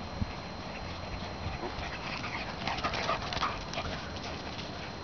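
A miniature schnauzer and a larger black dog running close by over grass: from about two seconds in, a quick run of short dog sounds.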